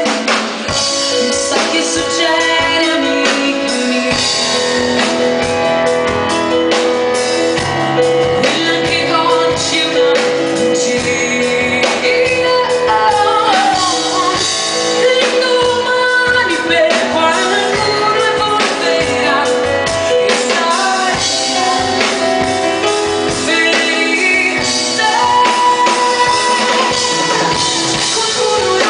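Live pop-rock band playing, with a woman singing over drums and guitar.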